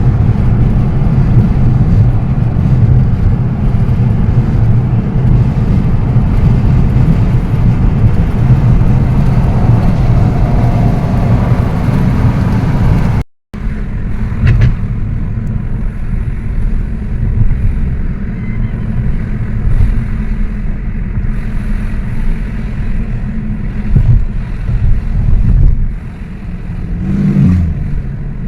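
Steady road and engine noise heard from inside a moving car on a highway. An edit about halfway through cuts it for an instant, and it comes back as a quieter, duller rumble.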